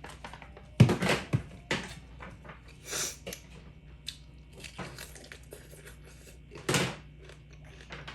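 Scattered household handling sounds: knocks, clicks and rustling, with a sharp knock about a second in and another short, louder sound near the end.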